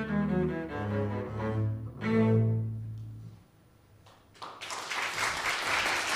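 Small string ensemble with cello and double bass playing the last phrase of a piece, ending on a held chord that fades out about three and a half seconds in. After a moment of quiet, applause starts and runs on.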